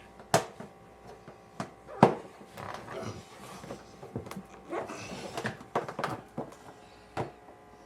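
Plastic parts of an animatronic figure being handled and fitted together: irregular knocks and clicks, the loudest about two seconds in, with rustling in between.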